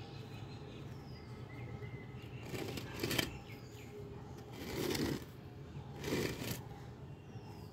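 Three short bursts of rustling noise about a second and a half apart, the first the loudest, over a steady low hum.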